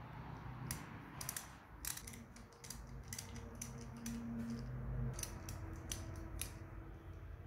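Small socket ratchet clicking as it loosens 8 mm tappet-cover bolts on a motorcycle engine: irregular runs of sharp, light clicks.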